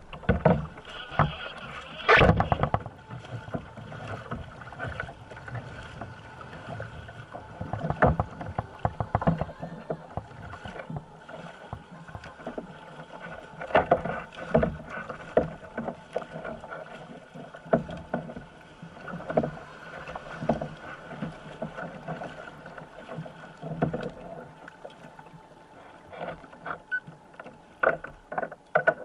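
Kayak paddling on choppy water: paddle blades dipping and splashing, with water slapping against the kayak's hull. The loud splashes come in irregular clusters every few seconds.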